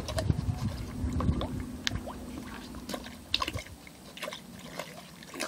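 Dog lapping water from a plastic bowl: quick, irregular wet laps and splashes, busiest in the first couple of seconds and sparser after that.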